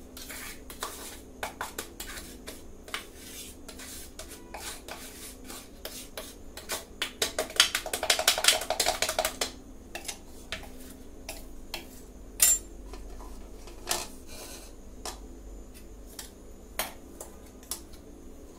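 Steel spoon scraping and tapping ground ragi flour out of a stainless-steel mixer-grinder jar into a sieve: scattered sharp clicks and scrapes, with a fast run of scraping about seven to nine seconds in.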